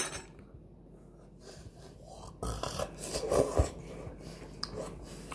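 Someone slurping up instant noodles with a loud, rough sucking noise. It starts a little over two seconds in and lasts about two seconds.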